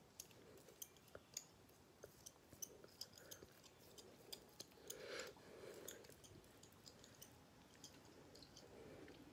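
Faint, irregular soft clicks and small wet smacks of fingers pressing and smoothing a damp fabric sheet mask against the face, with a brief soft rustle about five seconds in.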